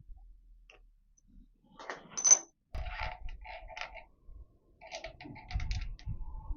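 Small steel parts of a milling machine's handwheel and leadscrew assembly clinking and rattling as they are fitted together by hand, with one sharp metallic clink about two seconds in and two spells of irregular rattling after it.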